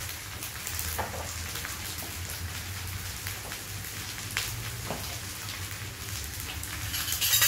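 Egg fried rice sizzling steadily in a wok over a high gas flame, with a few faint clicks. The sizzle swells louder near the end.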